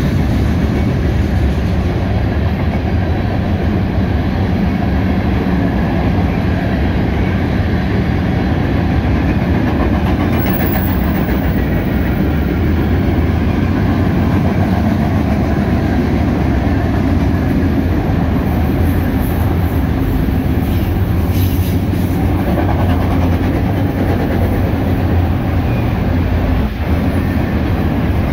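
Freight train cars (boxcars, covered hoppers and autoracks) rolling past, a steady loud rumble and clatter of steel wheels on rails.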